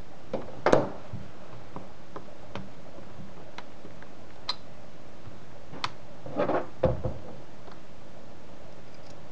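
Scattered small clicks and ticks of a precision screwdriver and tiny screws as the laptop screen is screwed to its back panel at the hinge corner. There are two short clusters of louder knocks from handling the screen and panel, about a second in and again near seven seconds.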